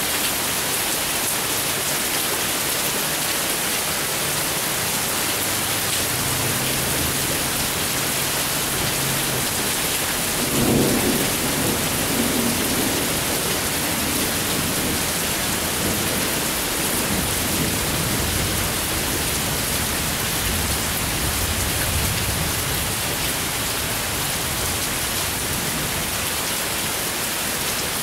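Steady rain during a thunderstorm, with low thunder rumbling now and then and a louder peal about eleven seconds in.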